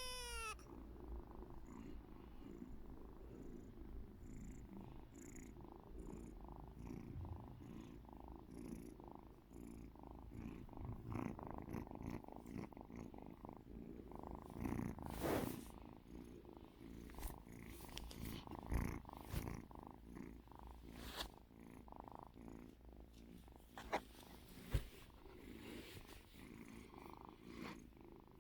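Calico Devon Rex cat purring faintly and steadily, with a few soft clicks or knocks now and then.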